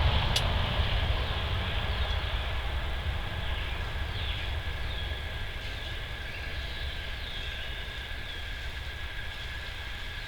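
Low rumble that slowly fades, with faint short chirps and a steady high tone above it and a single click about half a second in.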